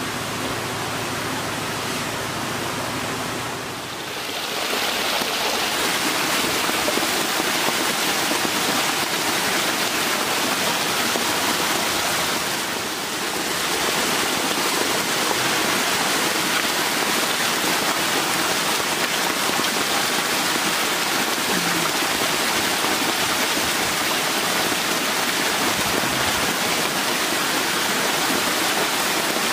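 Steady rushing and splashing of water jetting from an inlet pipe into a concrete tank crowded with hybrid magur catfish. Before that, for the first few seconds, a softer steady hiss with a low hum, and the water sound comes up about four seconds in.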